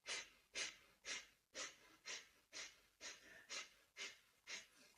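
A woman breathing quickly and rhythmically through her left nostril, the right one held closed, in alternate-nostril pranayama. The breaths are faint and come about two a second.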